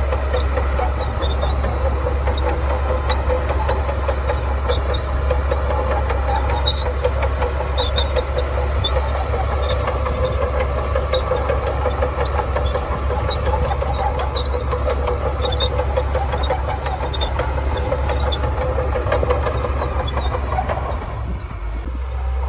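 Shantui DH17C2 crawler bulldozer's diesel engine running steadily under load, with faint high metallic ticks throughout; the engine note drops away about 21 seconds in.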